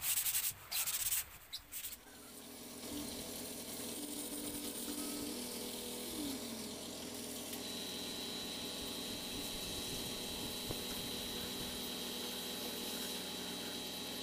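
Sandpaper rubbed by hand over a painted plywood speaker box: a few quick scraping strokes in the first two seconds, then a steady hum with a few held tones.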